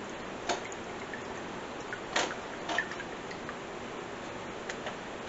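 A few light clicks and taps from the sauce bottle and measuring spoon as Worcestershire sauce is measured out, the loudest about half a second and about two seconds in, over a steady low hiss.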